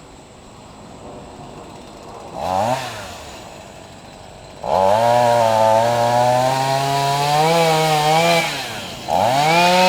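Chainsaw engine idling low, then revved briefly about two and a half seconds in. It is held at high speed for about four seconds from around the middle, drops back, and is revved up again near the end.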